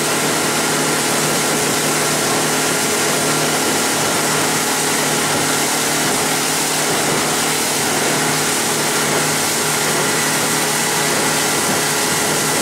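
Outboard motor of a 17.5-foot Arima Sea Chaser boat running steadily at cruising speed, with the rush of wind and water from the boat underway.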